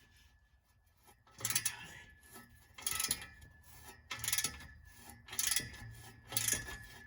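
A hand ratchet worked back and forth on an exhaust bolt, giving a rasping run of pawl clicks on each back-stroke. It starts about a second in, then five strokes follow roughly a second apart.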